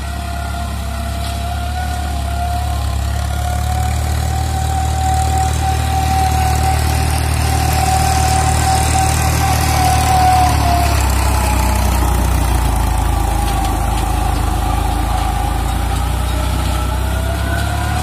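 Eicher 557 tractor's diesel engine running steadily under load while it drives a PTO mulcher shredding paddy straw. A steady whine sits over the engine's low drone, wavering in pitch and dropping away about eleven seconds in, then returning near the end.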